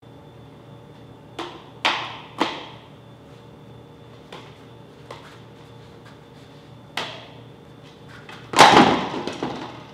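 Plastic juggling clubs smacking into the hands as they are caught: a handful of sharp, separate smacks, then a louder, longer clatter near the end.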